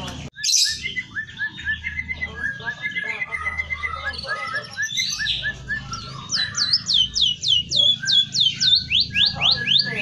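Caged emprit kaji (white-headed munia) singing a busy song of quick chirps and trills, laced with phrases copied from canary and white-rumped shama song. In the second half the song turns into a run of quick repeated sweeping whistles, about four a second.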